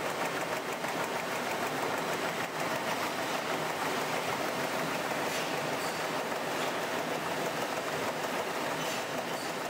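Printing press running: a steady mechanical clatter.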